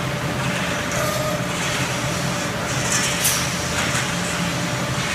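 An ERW steel tube mill and its NC flying cold saw cut-off running: steady machine noise with a constant low hum and a steady mid tone. A brief high hiss comes about three seconds in.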